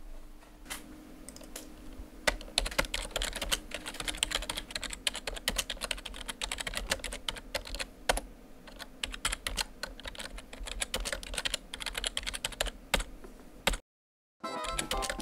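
Typing on a computer keyboard: a few scattered keystrokes, then fast, continuous key clicking from about two seconds in that stops abruptly shortly before the end. After a moment of dead silence, music starts.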